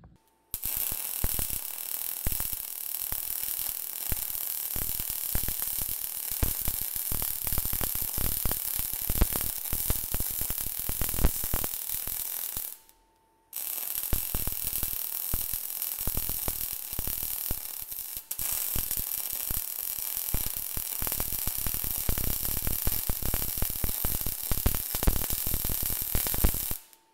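MIG welder arc crackling steadily as a filler pass is laid onto a steel roller end. It runs in two stretches with a short break about halfway through, and stops abruptly near the end.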